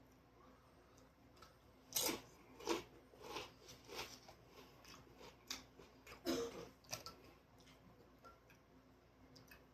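A person chewing food close to the microphone, an irregular run of wet chewing clicks and smacks that lasts about five seconds in the middle and then fades back to faint room tone.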